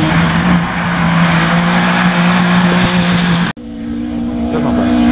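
Historic rally car's engine held at steady high revs as the car slides through a gravel corner. The sound cuts off abruptly about three and a half seconds in and resumes with another engine running at a steady, higher pitch.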